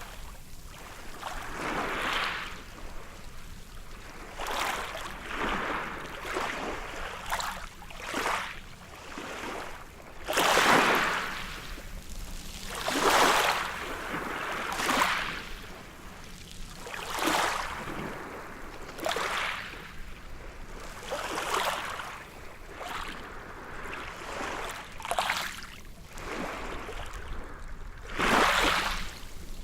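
Small waves breaking and washing up a beach, one after another every couple of seconds. The biggest breaks come about ten seconds in, around thirteen seconds, and near the end.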